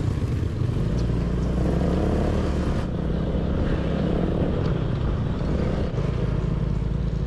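Motor scooter running steadily while being ridden along a road, with a low rumble of engine, road and wind noise.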